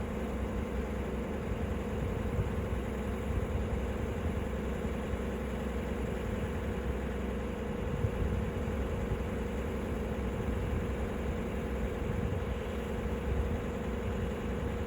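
A machine running steadily, a constant mechanical hum with a few faint knocks.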